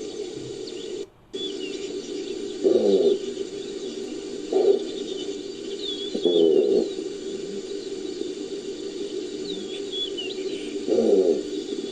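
Designed creature calls built from gazelle and wildebeest recordings: four short, low grunting calls, each falling in pitch, at uneven intervals. Behind them is a steady ambience bed with small birds chirping. The sound cuts out for a moment about a second in.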